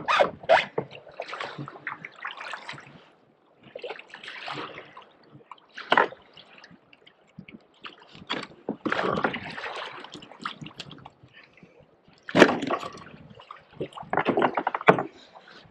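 Water slapping and gurgling against a kayak's hull, with irregular knocks and scrapes as a freshly caught pollack is unhooked and handled on the deck. The sharpest knocks come about six seconds in and again a little after twelve seconds.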